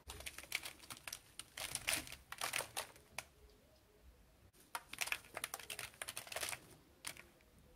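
Popped popcorn rustling and crackling as it is shifted and spills out of a red plastic bowl. It comes in two spells of irregular light crackles with a pause of about a second and a half in the middle.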